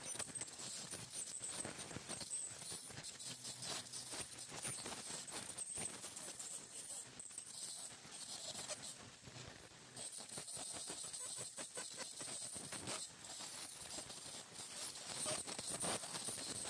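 Ultrasonic dental scaler working on a dog's teeth: a steady high-pitched whine, with dense, irregular crackling clicks as the tip scrapes tartar off the teeth.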